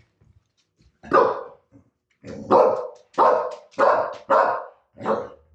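Dog barking: a single bark about a second in, then five sharp barks in a quick, even run of a little under two a second.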